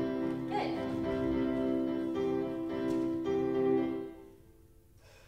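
Piano music accompanying a ballet barre exercise, closing on sustained notes that die away about four seconds in.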